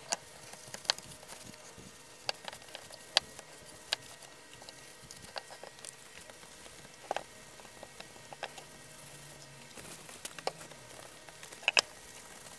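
A dozen or so light clicks and knocks as a transistor tester's black case and metal front panel are handled and set down on a bench mat, two close together near the end. Soft rubbing of kitchen roll wiping the case runs beneath.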